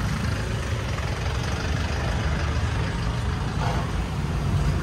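A heavy vehicle's engine idling: a steady low rumble.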